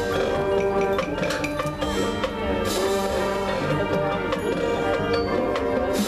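High school marching band playing its field show, with the front ensemble's mallet keyboards (marimba, xylophone) and bell-like percussion prominent over held band chords. A bright crash-like burst comes about two and a half seconds in.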